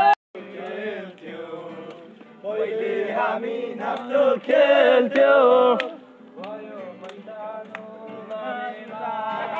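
A group of male voices singing and chanting together in chorus. The sound drops out for a moment just after the start, and the singing is loudest in the middle.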